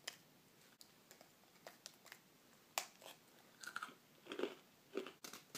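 A pink-iced molasses cookie being bitten and chewed: faint, scattered crunching and chewing clicks.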